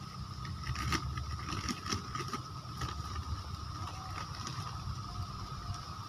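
A small hand scoop scraping into a heap of garden soil and sand and tipping it into a plastic polybag, with a few short scrapes and knocks in the first three seconds, over a steady low rumble.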